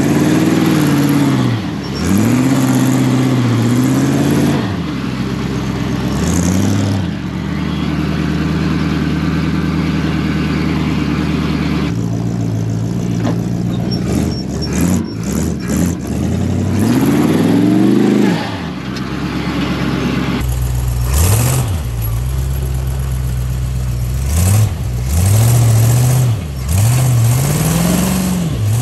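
Chevy 350 small-block V8 in a Mule utility vehicle, driven hard off-road: the engine revs up and falls back again and again, with one long climb in pitch a little past halfway before it drops off.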